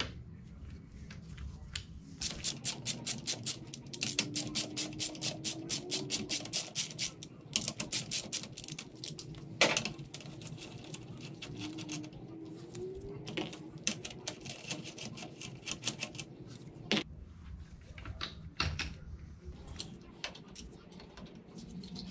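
Ratchet wrench clicking in quick, even runs of about eight clicks a second as bolts are backed out of the handlebar clamps, followed by scattered metal clinks and a few sharp knocks of parts and tools.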